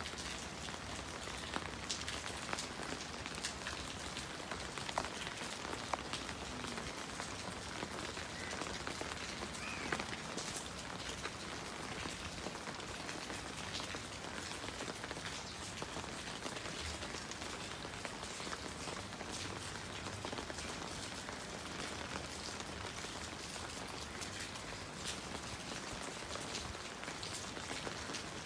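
Steady rain falling on a puddled rooftop floor and potted plants, with scattered sharper drop taps.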